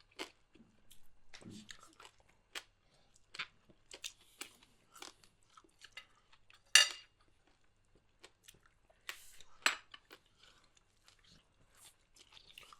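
Close-up crunching and chewing of crispy deep-fried pork knuckle skin (crispy pata): irregular short crunches, with two louder crunches about seven and ten seconds in.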